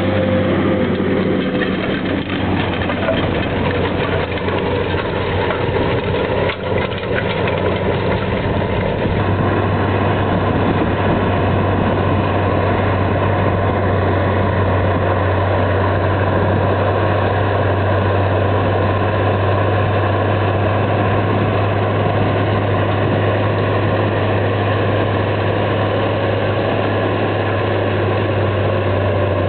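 Versatile 2375 four-wheel-drive tractor's diesel engine running steadily under heavy load as it pulls a Väderstad TopDown cultivator through the field, a constant low drone.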